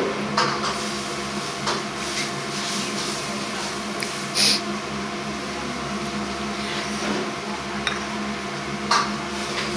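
Restaurant room tone: a steady machine hum, with a few short clinks and knocks of tableware. The loudest is about halfway through.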